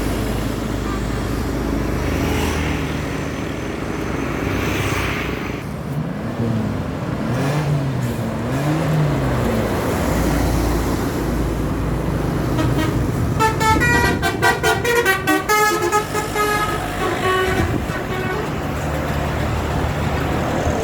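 Bus engines and road noise from a coach convoy, with a multi-tone telolet (basuri) bus horn playing a quick run of changing notes past the middle and a few more notes shortly after. Earlier on, a lower horn tone rises and falls several times.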